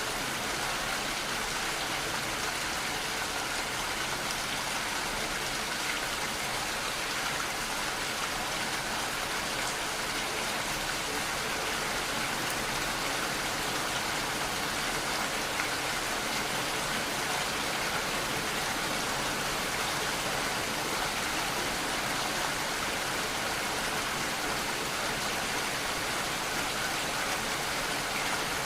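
Steady rain falling and pattering on surfaces, an even hiss without pauses.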